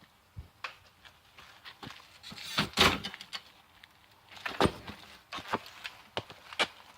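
Handling noise: a run of light clicks and knocks, with a louder clattering rustle about three seconds in and another about four and a half seconds in.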